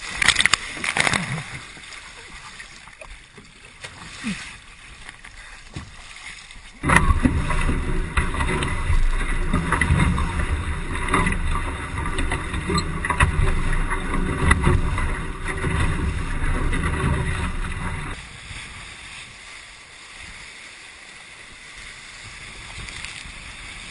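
Splashing and spray as a Hobie 16 catamaran pitchpoles at the start. From about seven seconds in, heavy wind buffeting on the microphone and water rushing past the hull as the catamaran sails fast; it starts and cuts off suddenly, about eleven seconds later.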